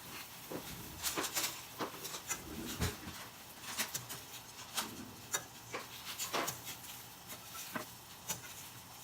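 Close-miked eating sounds from buldak ramen: irregular wet mouth clicks and smacks, with a few louder ones.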